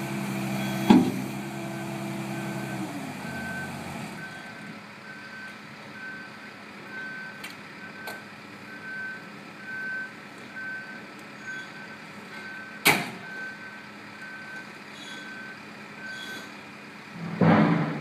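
JCB skid steer's diesel engine running with its backup alarm beeping steadily, a little more than once a second. The engine is loud for the first few seconds and then drops to a low idle. There are sharp knocks about a second in and about 13 s in, and the engine revs up again near the end.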